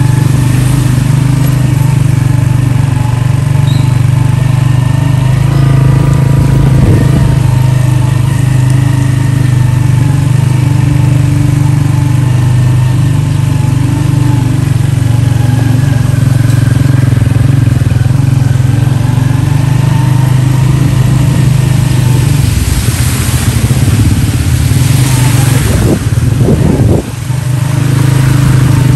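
Small motorcycle engine running steadily at a low, even hum as it rides through flood water. A louder rushing noise joins in for a few seconds near the end.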